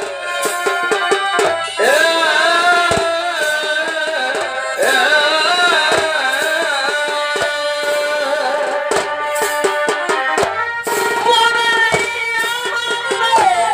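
Live Purulia chhau dance accompaniment: a wavering, sustained melody, most likely a shehnai, over dhol drumming, with a run of rapid drum strokes in the last few seconds.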